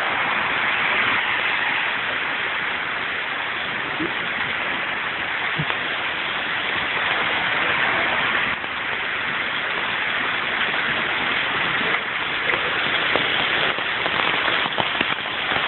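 Heavy rain mixed with hail pouring down steadily, with a few sharper ticks of hailstones striking in the later seconds.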